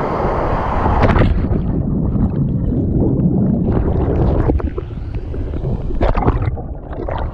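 Rushing water from an overflowing waterfall cascade, heard under low rumbling wind noise on the microphone, with a few brief knocks.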